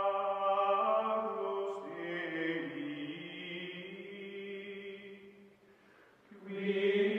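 Background music of sustained, choir-like chanting voices holding long chords. The music dips to a low point about six seconds in, then a fresh chord swells up near the end.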